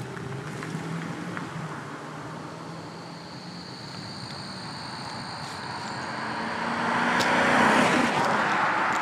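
BMW 740iL's V8 driving up and past, the engine and tyre rush growing steadily louder to a peak about eight seconds in.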